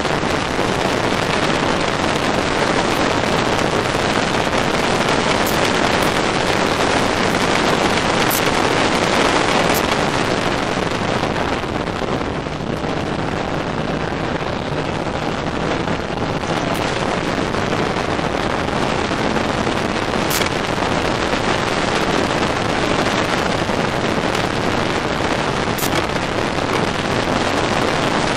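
Ginetta race car at speed on track, heard from inside the open cockpit: engine noise buried in heavy wind buffeting on the microphone, easing briefly about twelve seconds in, with a few sharp clicks.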